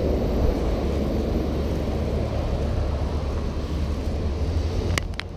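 Street traffic driving past: a small flatbed truck and cars going by, a steady low rumble.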